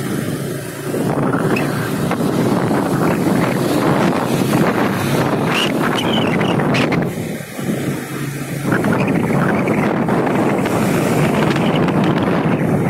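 Wind rushing over the microphone of a moving motorcycle, with a steady low engine and road hum beneath. The rush eases briefly about a second in and again for about a second midway, then comes back.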